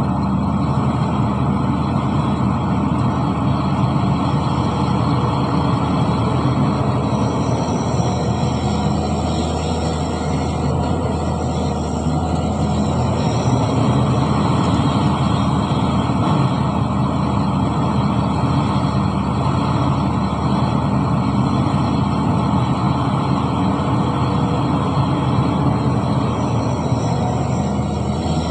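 Heavy diesel engine of earthmoving machinery running steadily at a constant pitch.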